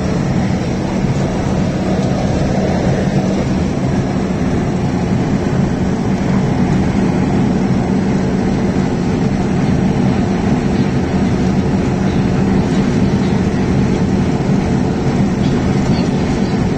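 Heavy truck driving at highway speed, heard from inside the cab: a steady engine drone with a low hum under the road and wind noise.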